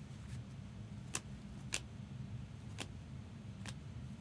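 Topps Chrome trading cards being flicked one at a time through a stack in the hands, each card giving a faint sharp click, about one a second, over a low steady hum.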